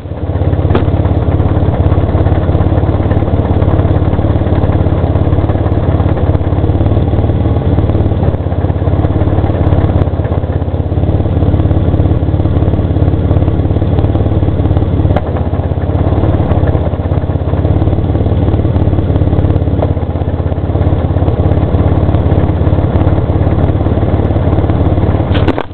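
Dodge Stealth R/T Twin Turbo's 3.0-litre twin-turbo V6 idling steadily, with a clutch-related noise that goes away while the clutch pedal is held in and returns when it is let out, as the clutch is worked in and out several times.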